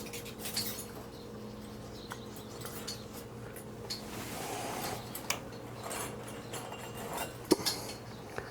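Light metallic clicks and rubbing of safety wire being fed through the drilled head of a starter bolt, over a steady low hum.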